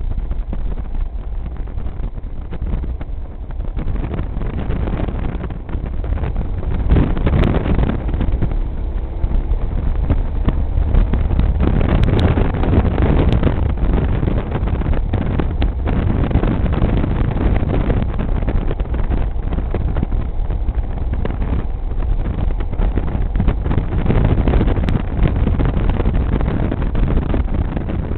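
Motorcycle ride: wind rushing over the bike-mounted camera's microphone with the engine running underneath. It gets louder about six seconds in and stays so.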